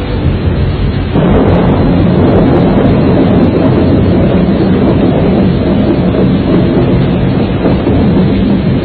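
Strong storm wind buffeting the microphone, a dense low rumble that gets louder about a second in and stays loud.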